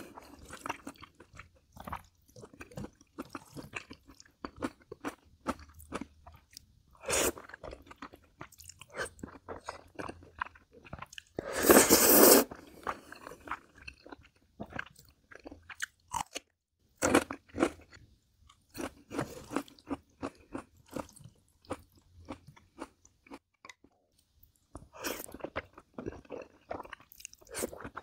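Close-miked mukbang eating: a person chewing and biting, with irregular crunchy bites. One louder sound lasts about a second near the middle.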